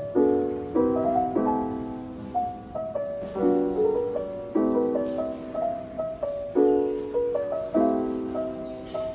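Background music: piano chords struck roughly once a second, with a melody line above them.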